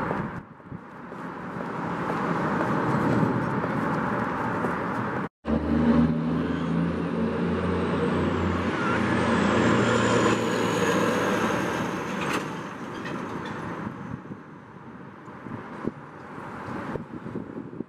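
City street traffic noise: cars and other vehicles passing, broken by a brief drop-out about five seconds in. After it an engine's low hum sounds for a few seconds, and a faint high whine slowly falls in pitch.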